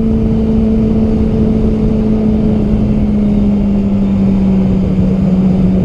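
Yamaha R6's inline-four engine running at a steady cruise under wind rush on the helmet microphone, its drone easing slightly lower in pitch over the few seconds.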